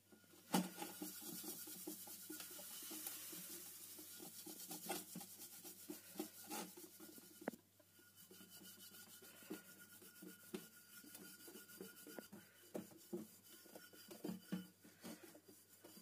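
Steel wool scrubber scouring the bottom of a stainless steel pot with a wet vinegar, citric acid and baking soda paste, in rapid back-and-forth rubbing strokes that take off burnt-on milk. The scrubbing turns quieter about seven and a half seconds in.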